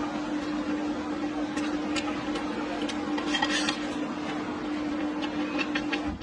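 Noodles being slurped and chewed, with small clicks and a louder slurp about three and a half seconds in, over a steady low electrical hum.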